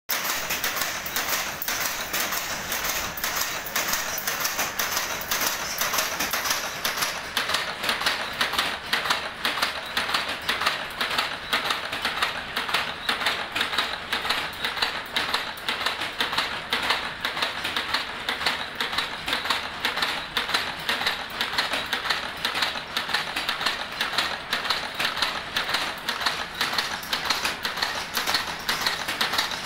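Cam-driven wire-forming machine running, cutting and bending steel wire into small clips, its slides and tools clattering in a fast, even train of clicks.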